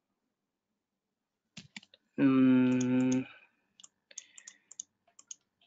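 Computer keyboard typing and clicking, in scattered sharp clicks. A steady pitched tone about a second long, louder than the clicks, sounds between them.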